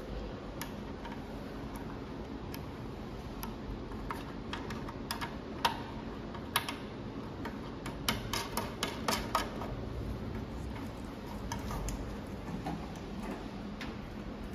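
Scattered light clicks and taps of hands handling a cable and the plastic links of a cable drag chain, busiest from about eight to nine and a half seconds in, over a steady low hum.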